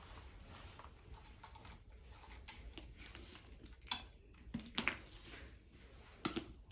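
Scattered light clicks and knocks of hard objects being handled, with three sharper knocks in the second half.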